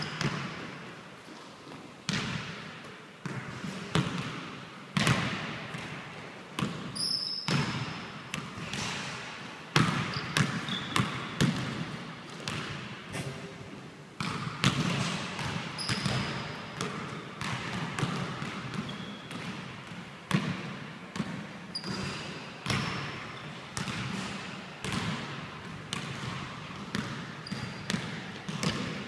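Basketball bouncing on a hardwood gym floor in irregular dribbles and thuds, echoing in the large hall, with short rubber sneaker squeaks now and then.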